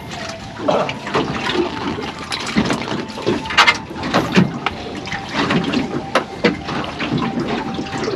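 Water splashing and sloshing in a quick, irregular run of small splashes.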